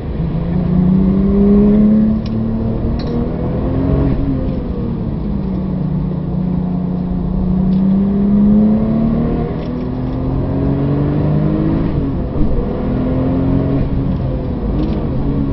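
Porsche 997 GT2 RS's twin-turbo flat-six, heard from inside the cabin, pulling hard on track: its pitch climbs under throttle, falls back at each gear change, and drops away again near the end as the car slows for a corner.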